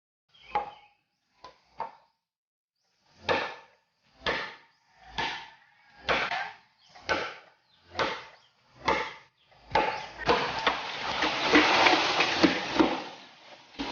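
A series of knocks on wood, about one a second, ten or so in all, each with a short ring. They give way to a few seconds of dense, continuous clattering and rustling near the end.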